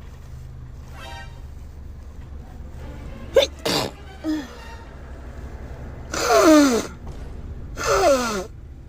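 A woman sneezing in a fit: a few short, sharp bursts about three and a half seconds in, then two long, loud sneezes, each with a falling voiced cry, under two seconds apart near the end. A steady low hum runs underneath.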